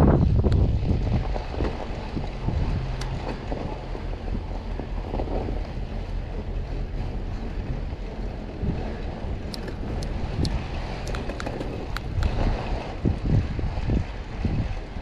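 Wind buffeting the microphone over a steady low rumble, with a few sharp clicks between about nine and twelve seconds in and some heavier low thumps near the start and near the end.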